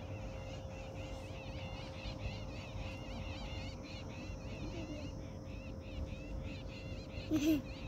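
Wild animals calling in a rapid, continuous run of high chirps. A low wavering hoot-like call comes briefly near the end, over a faint steady hum and a low wind rumble on the microphone.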